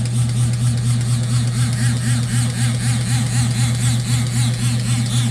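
Electric motor of a small hose pump running with a loud, steady hum and a wavering higher tone, struggling to get up to speed without a big starting push; the men suspect it lacks enough starting current.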